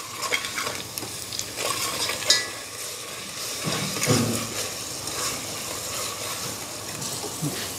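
Onions and ground spices frying in oil in a metal pot, stirred with a metal ladle: a steady sizzle with the ladle scraping and knocking against the pot. This is the spice masala being fried for the kadhi.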